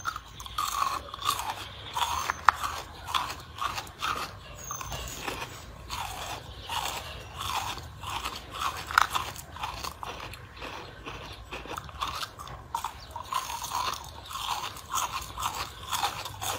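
A person biting and chewing small translucent coloured cubes: a steady run of crisp crunches, about two a second, with a sharper crack about two and a half seconds in and another near nine seconds.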